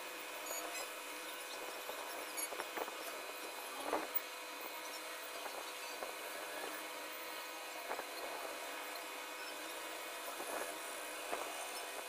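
Pencil scratching and shading on drawing paper, with a few sharper strokes standing out now and then, over a steady background hiss with a faint hum.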